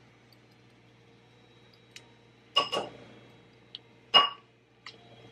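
A measuring spoon clinking against a ceramic mixing bowl while ground ginger is spooned in: a few light ticks, a quick double clink about two and a half seconds in and a louder single clink just after four seconds, each with a brief ring from the bowl.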